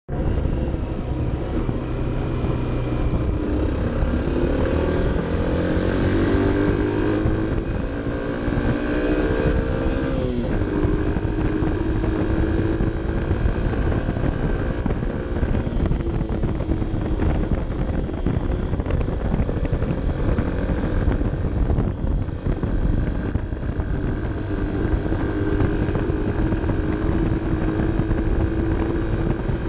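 Honda CB 125 F's small single-cylinder four-stroke engine pulling uphill, heard onboard over wind noise on the microphone. The revs climb for several seconds, drop sharply at an upshift about ten seconds in, then hold fairly steady.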